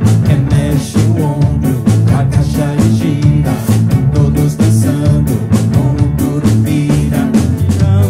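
A band playing a lively children's song with acoustic guitar and a drum kit keeping a steady, even beat.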